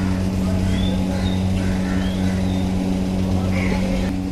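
A steady low mechanical hum with a few faint high chirps over it.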